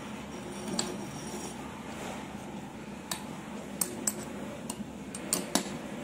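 A metal spoon stirring cucumber and raw mango pieces in salted water inside a glass jar, clinking against the glass. There is one clink about a second in, then a run of sharp clinks in the second half.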